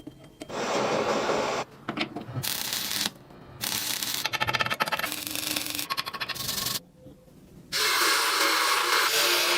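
Abrasive rubbing on rusty metal, heard as several stretches of scratchy noise that start and stop abruptly. One stretch has a fine, rapid ticking through it.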